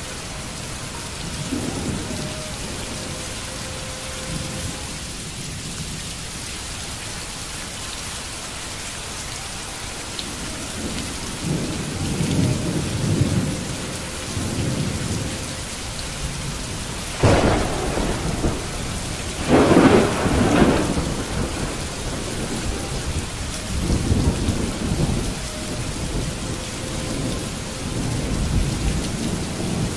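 Steady heavy rain hiss with thunder: low rumbles begin a little before the middle, a sudden sharp crack comes just past the middle and a loud peal follows about two seconds later, then more rolling rumbles toward the end.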